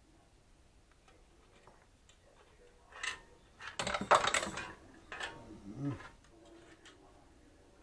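Small hard objects being handled on a workbench: a run of clicks and clattering knocks from about three to six seconds in, loudest about four seconds in.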